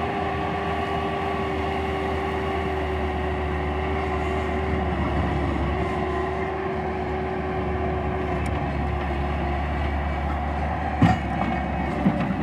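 Bobcat T190 tracked skid steer's diesel engine running steadily, with a sharp metallic clank about eleven seconds in and a lighter one near the end.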